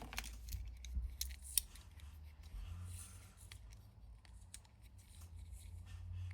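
Light metallic clicks and rubbing from a watchmaker's depthing tool being handled and opened, with a few sharp clicks in the first two seconds over low handling rumble.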